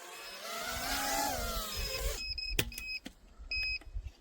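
A 5-inch FPV quadcopter's brushless motors whine, their pitch rising and falling with the throttle as it comes in to land, and cut off abruptly about two seconds in. After that come a couple of sharp clicks and a run of short, high beeps on one pitch.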